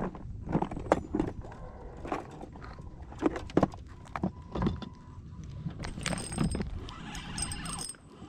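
Irregular knocks and clatter of gear being handled in a fishing boat, with a short hissing rattle about six seconds in.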